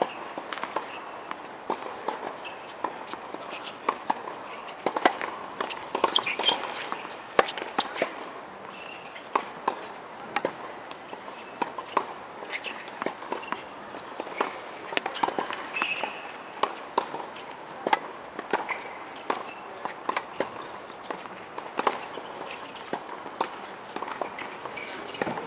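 Tennis balls bouncing on a hard court and being struck by rackets: many sharp, irregular knocks, the loudest cluster about five to eight seconds in.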